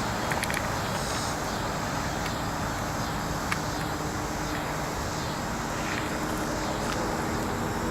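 Steady low rushing outdoor background noise, with a couple of faint clicks.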